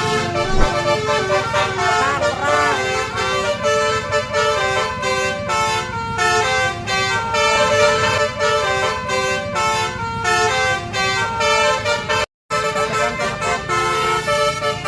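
Bus telolet horn, a set of electric air horns, playing a quick tune of stepped notes over the noise of the road and engine. The horn cuts off for a split second about twelve seconds in, then goes on.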